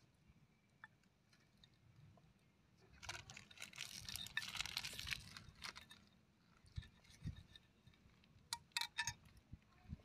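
Kitchen knife scraping and clicking against a ceramic tile while cutting up a small fish: a dense scrape about three seconds in lasting a couple of seconds, then a few sharp clicks of the blade on the tile near the end.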